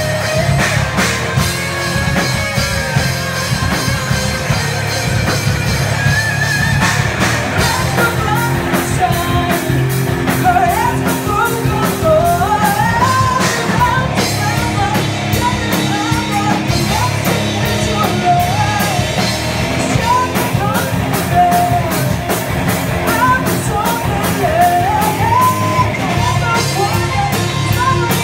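A metal band playing live, loud and dense: distorted electric guitars, bass and fast, driving drums. A female singer's voice comes in about eight seconds in and carries the song from there.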